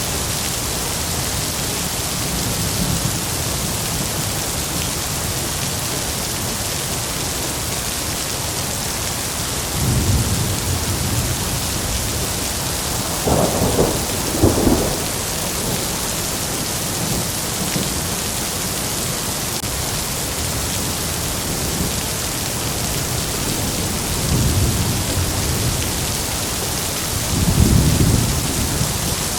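Heavy rain falling with a steady hiss, broken by several rolls of thunder: a low rumble, then a louder, sharper double peal about halfway through, and more rumbling near the end.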